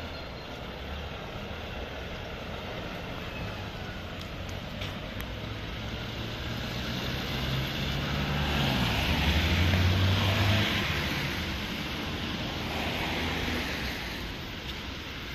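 Diesel engine of a heavy Renault fire-service rescue truck with a crane, pulling away and driving off with no siren. The engine note climbs, drops suddenly about eight and a half seconds in, is loudest around ten seconds in, then fades as the truck moves away. Tyres hiss on the wet road, with some wind on the microphone.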